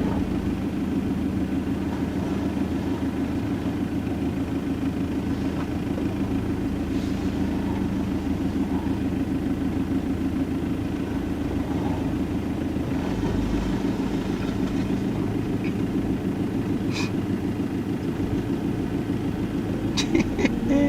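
A motor vehicle's engine running steadily at idle, a low even drone, with a few sharp clicks near the end.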